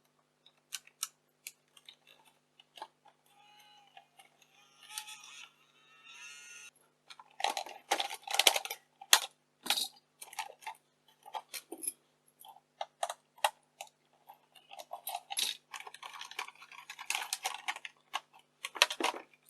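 Clicks, taps and scraping of hard plastic parts being handled and pried apart on a camcorder during disassembly, with a brief wavering whirr a few seconds in.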